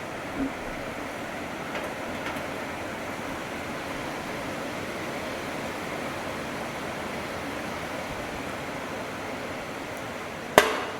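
Steady hiss with a few light knocks, then one sharp bang with a short ringing tail near the end.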